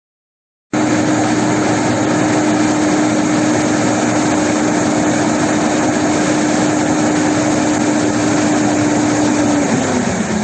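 4YZ-4T corn harvester running at working speed: a loud, steady machine noise with one constant hum. It starts abruptly about a second in, and near the end the hum falls in pitch as the machine slows.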